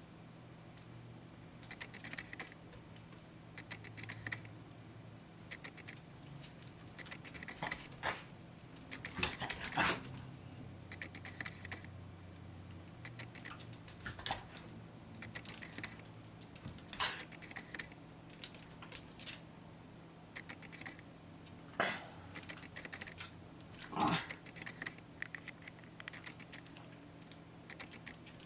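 Faint camera noise picked up by the Nikon D500's own microphone: short runs of clicking and whirring from the lens focusing, about every two seconds, with a few louder scattered knocks and rustles.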